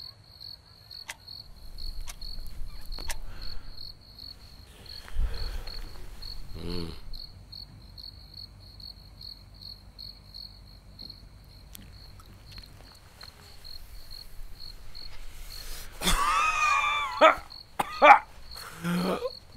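Cricket chirping steadily at about three chirps a second, over a low night-time rumble with a few scattered clicks. A short wavering vocal sound cuts in near the end.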